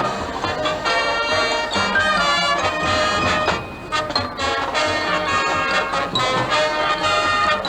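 High school marching band playing, brass (trumpets and trombones) carrying sustained chords over percussion, with a brief break in the sound between phrases a little after halfway.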